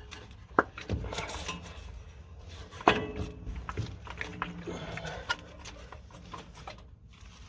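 Small knocks, clicks and rubbing of hands and parts being handled around a Chevy 350 small-block's spark plug wires, with two sharper knocks about half a second and three seconds in.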